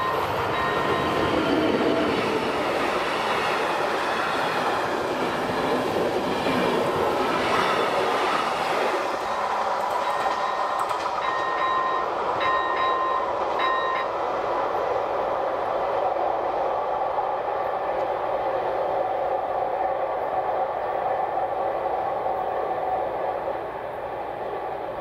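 A train running loudly along the rails at a level crossing, with a steady rumble and rattle that carries on throughout. Over it the crossing's warning bell rings in short repeated tones and stops about 14 seconds in, as the crossing clears.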